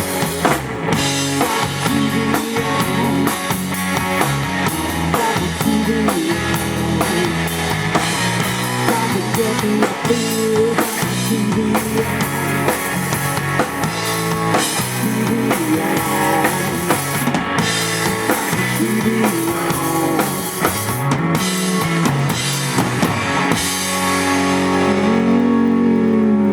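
Live rock band playing an instrumental break with drum kit and guitar, without singing; near the end the drums stop and a held chord rings on.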